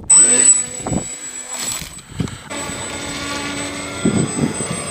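Electric RC plane motor and propeller running, with a whine that rises at the start and then settles to a steady tone.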